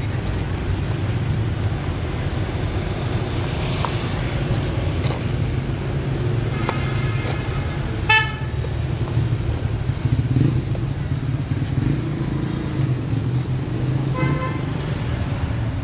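Steady street traffic rumble with vehicle horns beeping a few times: twice about halfway through, one short and loud, and once more near the end.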